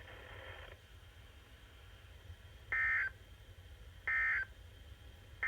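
Emergency Alert System end-of-message code: short, buzzy digital data bursts, the first about two and a half seconds in, the second about a second and a half later, and a third starting at the very end. They mark the close of the alert test message.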